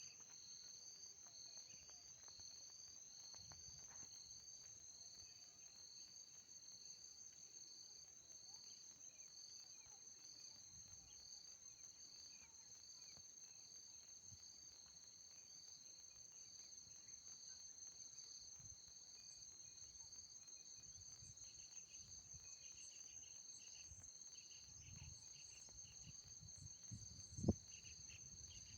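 Insects, crickets by their sound, calling together: one steady high trill beneath a slightly lower chirp that repeats about every two-thirds of a second. A single sharp knock sounds near the end.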